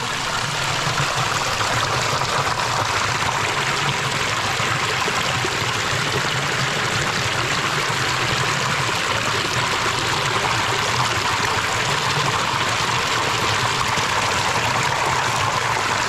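Water of a stream running steadily, an even rushing with no breaks.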